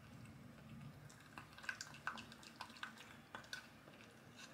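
Wooden spoon stirring a thick batter in a glass bowl: soft, irregular clicks and taps of the spoon against the glass, starting about a second in, with a little wet squishing.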